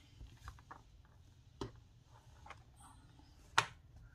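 Clear acrylic stamp block rubbed with a tissue, with a few light taps, then a sharp click about three and a half seconds in as the block is set down on the wooden tabletop.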